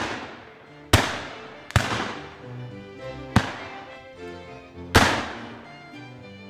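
Four shots from black-powder muzzle-loading shotguns at uneven spacing, about one, two, three and a half and five seconds in, each fading away in a long echo. Background music plays underneath.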